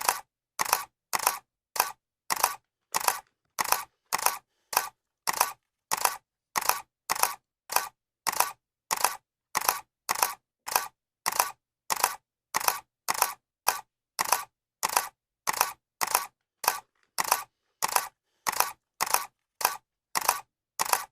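Camera shutter clicking over and over at an even pace, about two clicks a second, each a quick double click.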